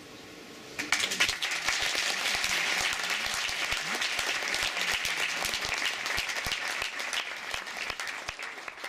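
Audience applause: after a moment of quiet it breaks out about a second in as dense, even clapping and begins to thin out near the end.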